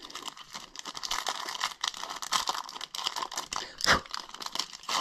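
Hockey card pack wrapper crinkling and tearing as hands work it open, a dense run of small crackles, with a single thump about four seconds in.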